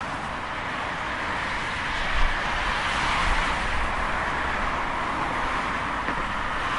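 Steady wash of distant road-traffic noise, an even hiss over a low rumble, with a slight swell about two seconds in.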